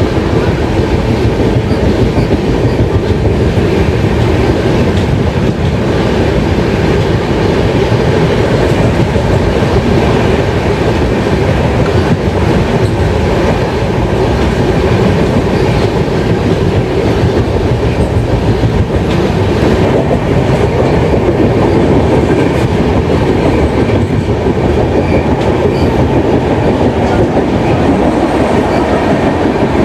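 Indian Railways express passenger train running through a ghat section, heard from aboard: a steady rumble and clatter of the coach's wheels on the track.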